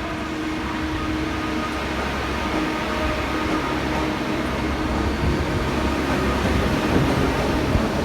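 Steady low mechanical rumble with a faint hum, growing gradually louder, like a moving vehicle heard from inside.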